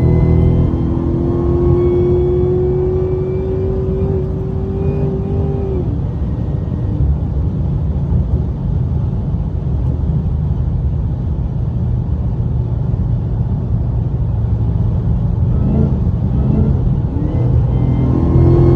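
Cadillac CTS-V coupe's supercharged 6.2 L LSA V8 under way, with the low drone of the engine and exhaust. Over it a supercharger whine climbs slowly for about six seconds, then falls away as the throttle eases off. The whine comes back, rising, near the end.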